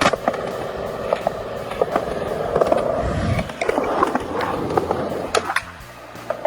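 Skateboard wheels rolling over concrete, with several sharp clacks of the board striking the ground; the rolling dies away near the end.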